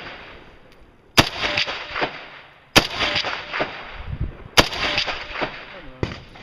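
FN SCAR rifle fired four times, about one and a half to two seconds apart, at a steady aimed pace. Each shot is followed by echoes rolling back for about a second.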